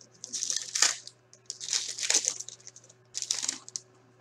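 Foil wrapper of a hockey card pack torn and crinkled by hand, with cards rustling against it, in three short bursts.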